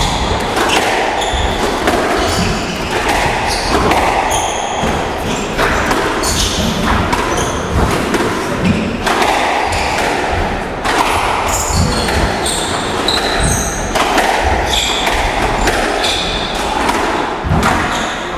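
Squash rally: the ball cracking off rackets and the court walls in irregular sharp knocks, with footfalls and short high shoe squeaks on the court floor, echoing in the court.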